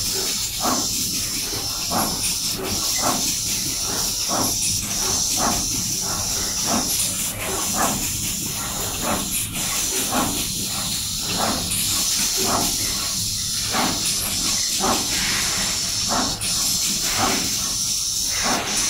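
Zheng Bang ZB3545TP pick-and-place machine running: a steady hiss and hum, with short mechanical whirs repeating about twice a second as the placement head moves.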